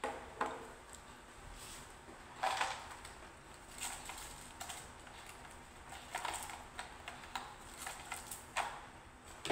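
Small tools being handled and rummaged for in a box: a scattered series of short clicks and rattles, with a sharper clack at the end.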